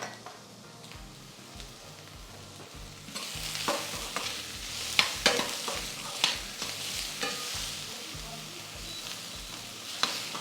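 Chopped green chillies, garlic, ginger and coriander leaves sizzling in hot coconut oil while a spatula stirs them. The sizzle grows louder about three seconds in, with sharp clacks of the spatula against the pan.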